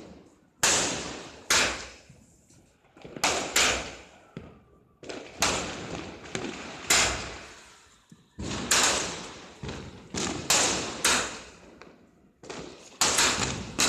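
Fireworks exploding one after another, about a dozen sharp bangs at roughly one a second, some in quick pairs, each with a short echoing tail.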